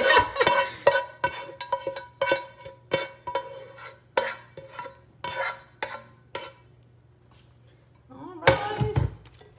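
A metal skillet being scraped out into a baking dish: a run of sharp clinks and knocks, each with a short ring from the pan, one or two a second. After a brief lull comes a single heavier, louder clunk near the end.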